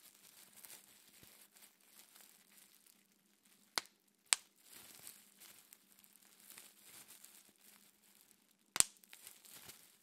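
Plastic bubble wrap crinkling as fingers work it. Three sharp bubble pops come through: two about half a second apart a little under four seconds in, and a louder one near the end.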